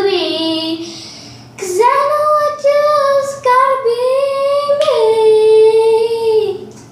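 Young girl singing unaccompanied in a small bathroom, holding a few long notes with no words; the last and longest note slides down in pitch and fades near the end.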